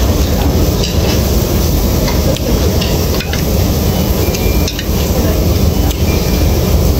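Metal chopsticks clicking against dishes several times, about once a second, over loud, steady, rumbling background noise.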